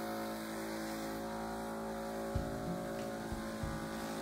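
Corded handheld electric body massager running steadily with a dense motor hum while its head is pressed against the scalp. A few short low thumps come in the second half, about two and a half and three and a half seconds in.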